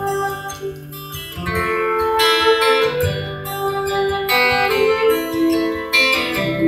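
Live acoustic guitar strumming under a flute playing sustained melody notes, an instrumental passage with no voice.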